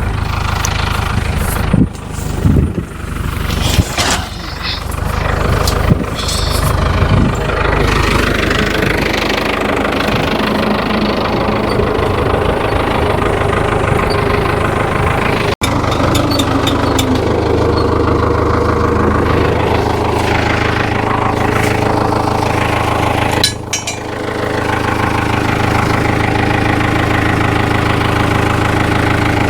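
Tractor engine running steadily, with a few clunks and knocks over the first several seconds.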